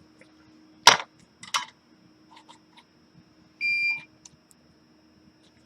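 A sharp click about a second in, a couple of lighter clicks after it, then a single short electronic beep a little past the middle. A faint steady hum lies underneath.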